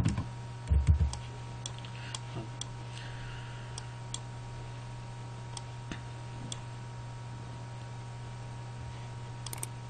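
Irregular clicks from a computer mouse being worked, a few seconds apart, over a steady low electrical hum. There is a low thump about a second in.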